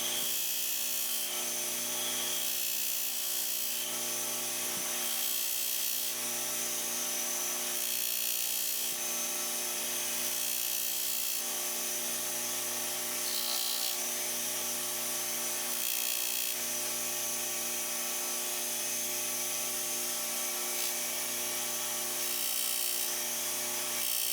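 A small power tool's motor running steadily with a high hiss of grinding or polishing, the sound swelling and easing about every two seconds.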